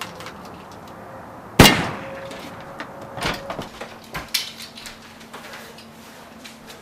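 A loud, sharp clang about a second and a half in, with a brief ringing tail, followed by scattered lighter knocks and clicks.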